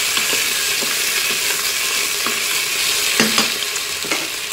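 Cubed potatoes sizzling in olive oil in a Cookeo multicooker's bowl on its browning setting, while a utensil stirs them, with scattered scrapes and knocks against the bowl, the loudest about three seconds in.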